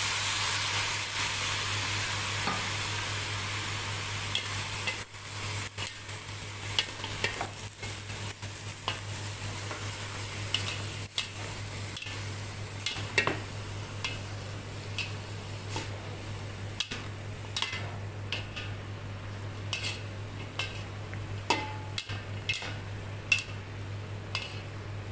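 Vegetables stir-frying in a wok just after oyster sauce is poured in: a steady sizzle that fades over the first few seconds, then a spatula scraping and clicking against the wok again and again as the cabbage, carrots and green beans are tossed.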